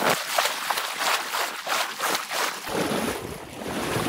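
Repeated splashing and sloshing of water as a person wades through a flooded river. About two and a half seconds in, wind starts buffeting the microphone with a low rumble.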